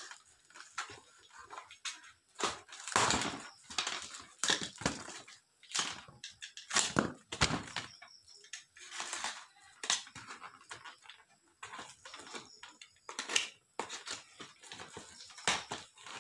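A tightly taped cardboard parcel being cut and torn open by hand: an irregular run of ripping, scraping and rustling noises with short pauses between them.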